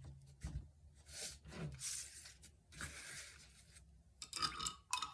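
Paintbrush bristles rubbing over the canvas in a few short scratchy strokes, then light knocks and a scrape near the end as the canvas is turned on the board.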